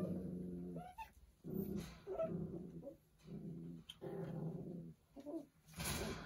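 Doberman puppies making low, drawn-out grumbling growls, about five in a row, each lasting roughly a second. A short noisy burst comes near the end.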